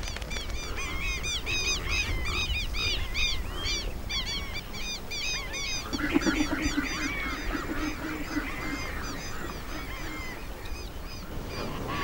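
A flock of birds calling, with many short, high chirping calls overlapping. About six seconds in, lower honking calls join and fade out after a few seconds.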